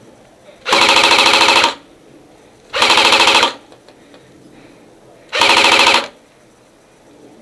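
Airsoft rifle firing three short full-auto bursts: about a second long near the start, a shorter one about three seconds in, and another about five and a half seconds in.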